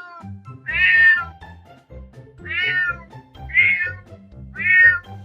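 Domestic cat meowing four times, each meow about half a second long and roughly a second apart, over background music.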